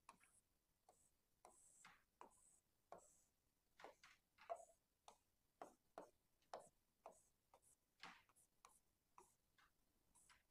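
Faint, irregular tapping and scratching of a pen drawing on the glass screen of an interactive smart board, about two short ticks a second.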